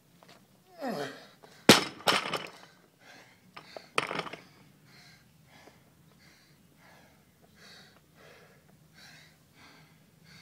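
A loaded barbell with rubber bumper plates is dropped from overhead after a man's falling groan, crashing onto the mat and knocking again as it bounces and settles. This is followed by heavy, even panting, about one and a half breaths a second, as he catches his breath between clean and jerk reps.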